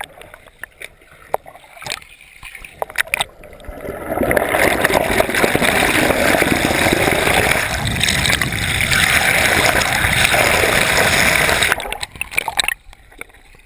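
Bathwater sloshing and rushing around a GoPro held underwater, heard muffled through the camera. A few knocks and splashes at first, then about four seconds in a loud continuous rush of churning water that stops abruptly near the end as the camera comes up.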